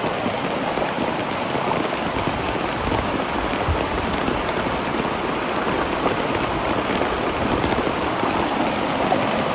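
Steady rush of water from a creek running in sudden flash flood.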